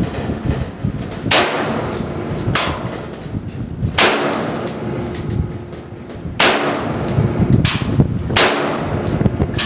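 M4-style scoped rifle fired at a slow, steady pace: four loud shots roughly two to two and a half seconds apart. Fainter sharp cracks and a metallic ringing follow, as bullets strike hanging steel targets.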